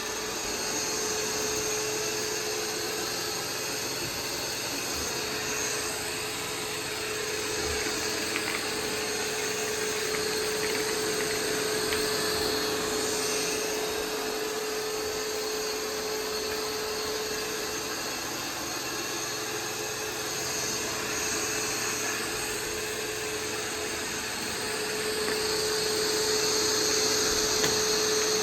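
Roomba 505 robot vacuum running: a steady motor whir with a constant hum, getting a little louder near the end.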